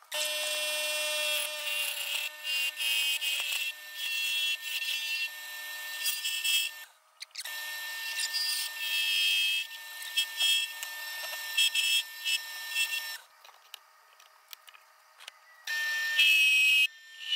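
Harbor Freight mini wood lathe running with a steady motor whine while a turning tool cuts a spinning black locust bowl blank, giving repeated bursts of high cutting hiss. The sound cuts out briefly about seven seconds in and again for a couple of seconds near the end.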